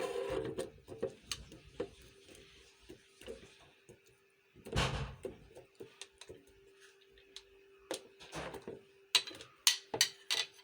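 Kitchen items being handled and set down: scattered clicks and knocks, with a louder knock about five seconds in and a quick run of clicks near the end, over a faint steady hum.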